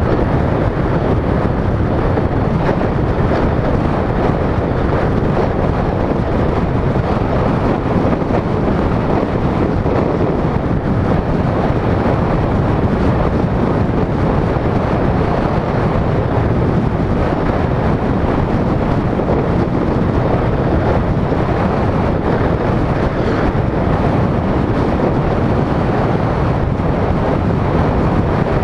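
Steady wind noise on the microphone of a GoPro mounted on a moving car, mixed with road noise from driving at speed.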